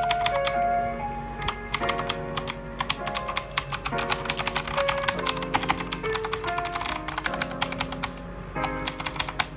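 Typing on a mechanical keyboard with Outemu Blue clicky switches and PBT keycaps: a fast, continuous run of clicky keystrokes. Background music plays underneath.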